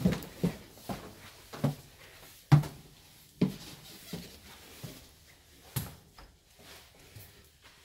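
Footsteps going up a staircase and across a floor: irregular thumps, one or two a second, thinning out in the second half, the loudest about two and a half seconds in.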